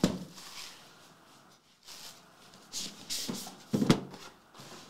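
Cardboard trading-card box being handled and unboxed, its outer sleeve slid off: a sharp knock at the start, soft rubbing and scraping, then a few louder knocks about four seconds in.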